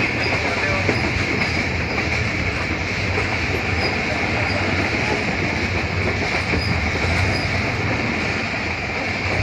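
Passenger train coach running along the track, heard from an open window: a steady, continuous noise of wheels on rails with a low rumble underneath.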